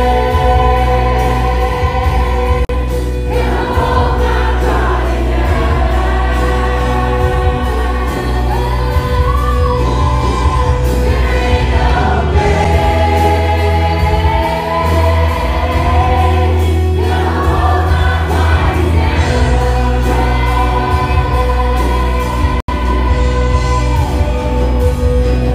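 Live contemporary worship music over a PA: several singers holding sung lines together over a band with a heavy steady bass. The sound cuts out for an instant about three seconds before the end.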